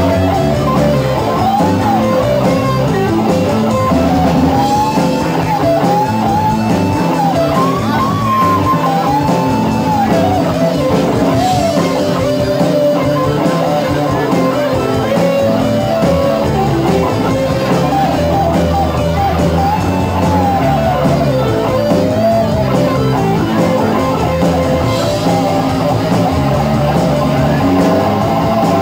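Live rock band playing electric guitars, electric bass and drum kit, with a lead line rising and falling in arching, bending phrases over the rhythm section.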